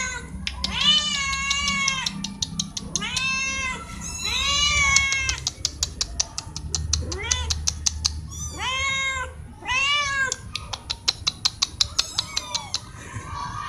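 Kittens meowing loudly again and again: about seven high cries, each rising and then falling. Between the cries come runs of rapid ticking.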